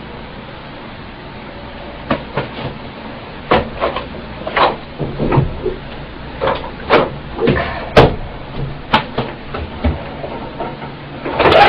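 Irregular knocks and clicks of objects being handled, about twenty over several seconds. Near the end a hair dryer switches on with a sudden loud, steady rush of air.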